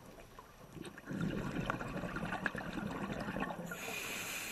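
Water gurgling and trickling with many small crackles, starting about a second in; a faint steady hiss joins near the end.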